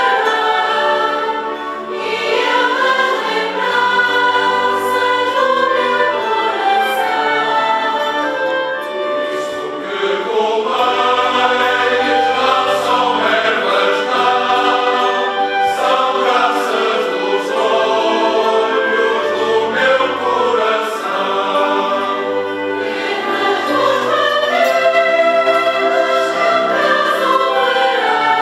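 A large mixed choir singing with a wind band accompanying, clarinets and brass among it, the bass line moving every second or so under the voices.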